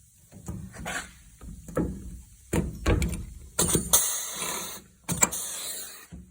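Sheet-metal work on a race car body: a run of knocks and clatters, with two short, harsh bursts of noise, one about three and a half seconds in and one about five seconds in.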